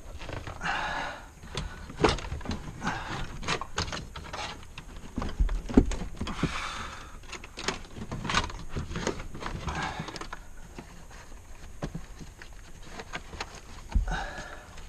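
Hands working on a car's interior trim and wiring: scattered plastic clicks and knocks with short bursts of rustling as panels and wires are pulled and moved.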